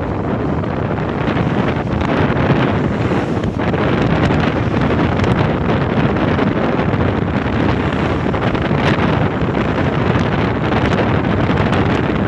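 Wind rushing steadily over the microphone of a moving Bajaj Pulsar NS160 motorcycle, with the bike's running and road noise beneath it.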